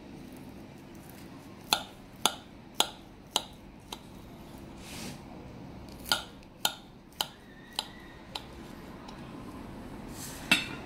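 Kitchen knife clicking against a ceramic serving plate while cutting slices of a soft layered cake. There are two runs of five sharp clicks about half a second apart, then a single louder knock near the end.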